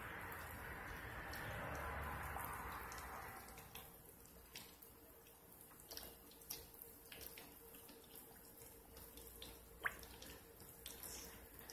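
Battered flounder fillets frying in a pan of oil: a steady sizzle for the first few seconds that then drops to a fainter bubbling with scattered small pops and crackles, one sharper pop near the end.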